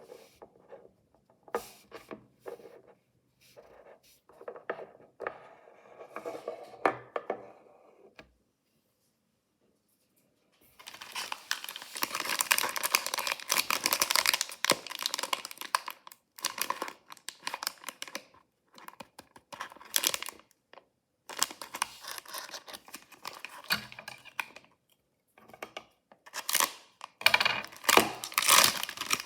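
Hands opening toy packaging: light clicks and handling at first, then a short silent gap, then loud tearing and crinkling of the wrapper from about eleven seconds in, with brief pauses.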